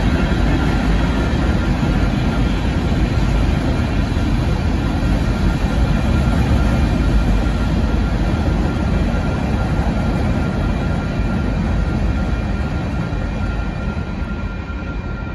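Freight cars of a Union Pacific rock train rolling past: a steady rumble of wheels on rail. The sound eases off near the end as the last cars go by.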